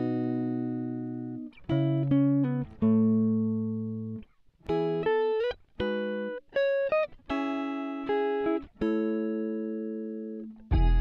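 Background music: a slow melody of single plucked-string notes, each ringing and fading. A fuller, deeper chord comes in at the very end.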